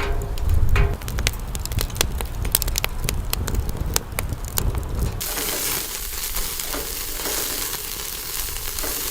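Wood fire crackling in a secondary-combustion fire pit, with many sharp pops over a low rumble; about five seconds in, the sound changes abruptly to a steady hiss.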